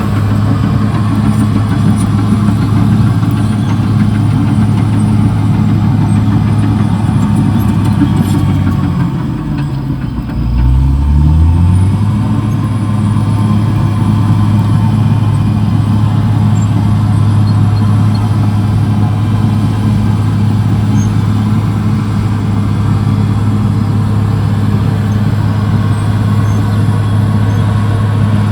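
CAT D6R XL bulldozer's diesel engine running steadily. About nine seconds in, its pitch drops sharply and climbs back within about three seconds as the engine slows and then revs up again.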